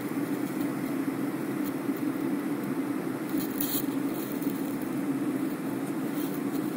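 Airliner cabin noise in cruise flight: a steady, even roar of engines and airflow heard from a window seat, with a short rustle about three and a half seconds in.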